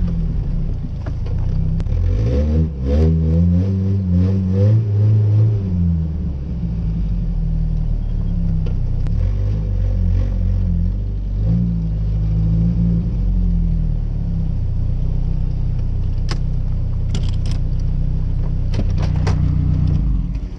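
Chevy S10 pickup's engine heard from inside the cab, revving up and down as the truck is driven hard in the snow, with a quick series of rev swings a few seconds in. A few sharp clicks come near the end.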